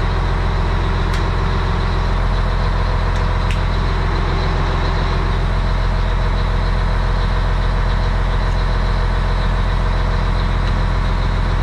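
The diesel engine of a 1988 Mack CF fire truck idling steadily, heard from inside the cab while it builds air pressure. A couple of faint clicks from the dash switches come about one second and three and a half seconds in.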